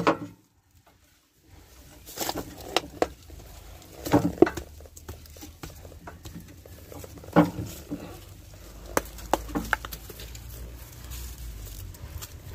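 Hand-tool work on a truck's battery cables: scattered clicks and knocks of pliers and metal cable ends, mixed with rustling of dry vines and grass. A faint low hum comes in about two-thirds of the way through.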